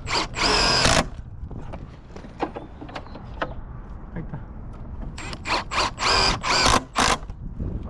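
Power drill driving screws into wooden form boards in short bursts: one near the start, then a quick run of four or five bursts about five seconds in.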